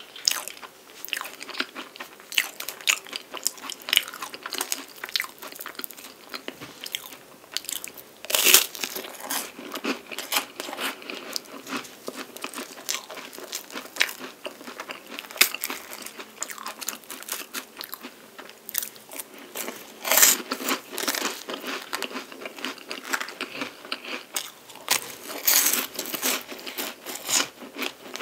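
Close-miked crisp crunching bites and chewing of a chocolate-coated palmier carré, a flaky French puff pastry. Sharp loud crunches stand out about eight seconds in, around twenty seconds and near twenty-six seconds.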